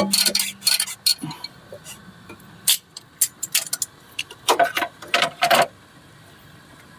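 Pliers and metal engine parts clicking and clinking as a coolant hose clamp is worked loose in a car engine bay: a run of sharp metallic clicks, with a quick cluster about four and a half seconds in.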